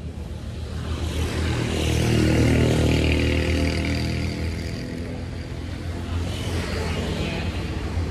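A motor vehicle passing close by, its engine noise swelling about two seconds in and then fading, over a steady low engine hum; a second, smaller swell follows near the end.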